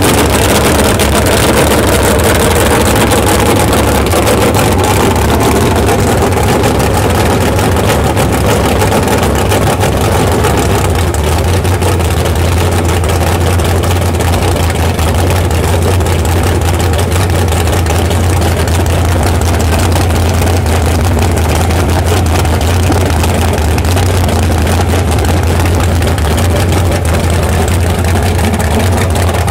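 Supercharged 541-cubic-inch Hemi V8 running steadily on an engine stand, its exhaust coming straight out of open long-tube headers.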